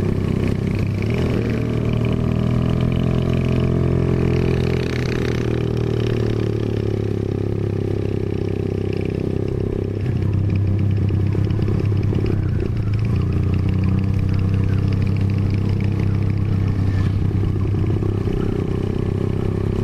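Motorcycle engine running steadily, its pitch shifting now and then.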